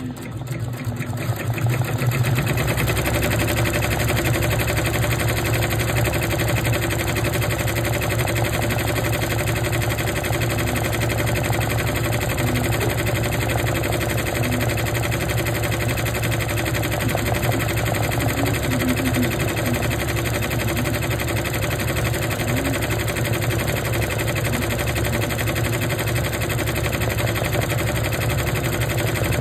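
Embroidery machine stitching at speed: a steady, rapid mechanical rattle of the needle bar and hoop drive, building up over the first couple of seconds and then holding even.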